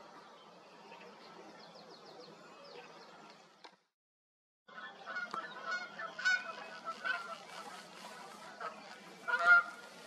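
Birds calling in the open: faint high birdsong at first, then, after the sound cuts out for about a second, louder repeated pitched calls, the loudest near the end.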